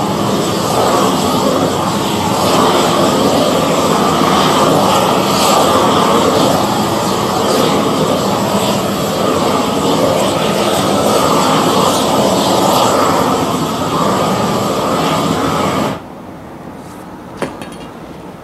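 Propane roofing torch burning steadily, heating a torch-applied roofing membrane. About sixteen seconds in the noise drops sharply to a quieter hiss, with a single sharp click shortly after.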